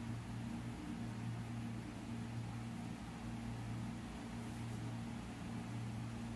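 A steady low hum under a faint, even hiss.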